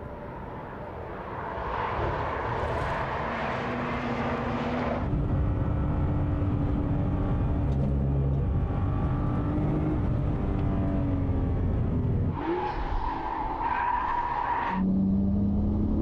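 Nissan GT-Rs (a Skyline GT-R R34 and an R35) running hard on a race circuit, the engines' note holding steady with small rises and falls in pitch. Tyres squeal through the corners twice: from about two to five seconds in, and again from about twelve to fifteen seconds in.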